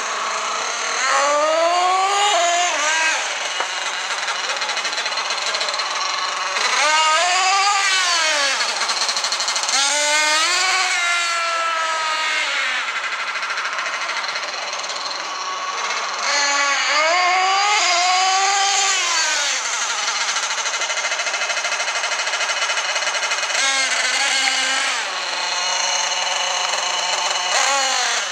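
Small two-stroke nitro engine of a Thunder Tiger Sledgehammer S50 1/8-scale RC monster truck, buzzing high and rattly, revving up and falling back again in repeated bursts a few seconds apart.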